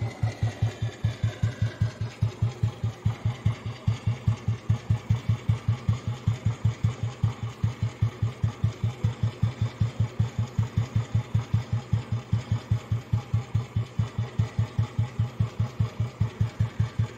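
Royal Enfield Bullet 350's cast-iron, heavy-crank single-cylinder four-stroke engine idling, with an even slow beat of about five firing pulses a second.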